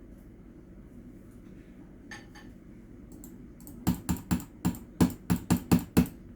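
Computer keyboard keys being pressed: a couple of faint clicks about two seconds in, then a quick run of about ten sharp keystrokes near the end, some five a second.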